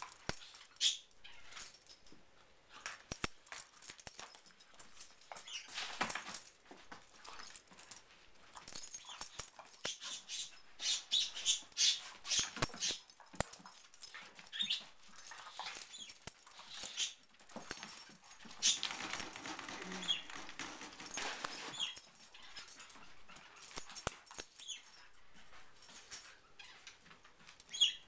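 Two dogs play-fighting mouth to mouth (bitey face): an irregular run of short scuffling and mouthing noises with small dog vocal sounds, busiest about two-thirds of the way through.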